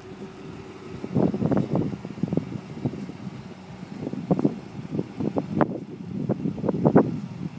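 Pickup truck engine idling, heard through its exhaust, with a steady low hum and an uneven pulsing exhaust note.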